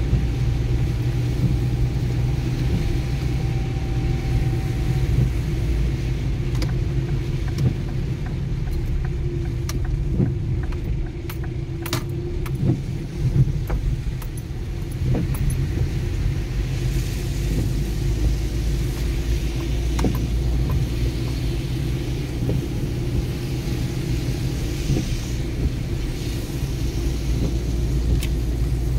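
Car interior while driving on a rain-soaked road: steady low engine and tyre rumble, with scattered sharp clicks, most of them in the middle stretch.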